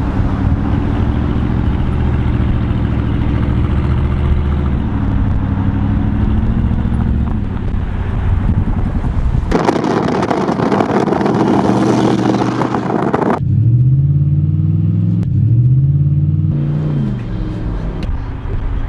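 Chrysler 300C's 5.7 Hemi V8 exhaust running steadily, then blipped twice near the end, each rev rising and falling. In the middle there are a few seconds of loud, steady rushing noise.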